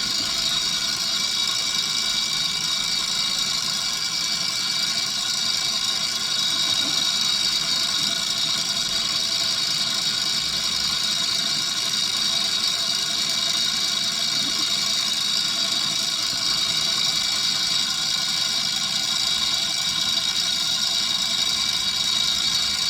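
Machine-shop machinery running steadily: an even high hiss with a few constant high tones, unchanging throughout.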